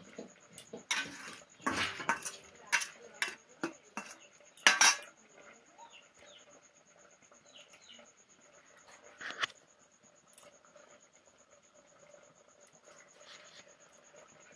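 Metal spatula clinking and scraping against a stainless steel bowl as cooked greens are turned in it: a run of sharp clinks in the first five seconds, the loudest about five seconds in, one more about nine seconds in, then mostly quiet.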